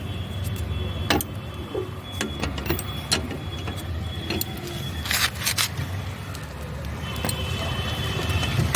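Car jack being let down under the car's weight, with scattered metal clicks and clinks from the jack and its handle over a steady low rumble.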